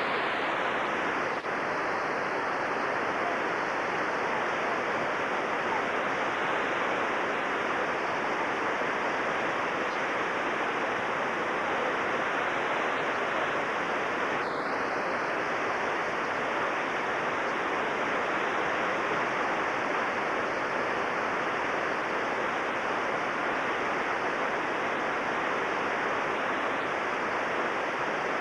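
Whitewater rapid rushing steadily: a constant, loud roar of river water pouring over rocks and through big waves.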